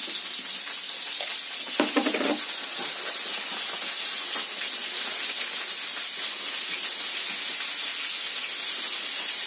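Pelmeni frying in oil in a pan: a steady sizzle, with a short voice sound about two seconds in.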